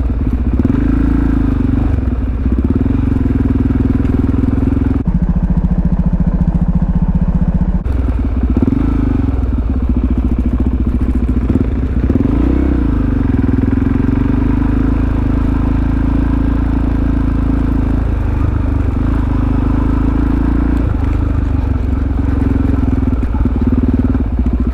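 Supermoto motorcycle engine running steadily while riding at low speed, its revs dipping and rising a few times.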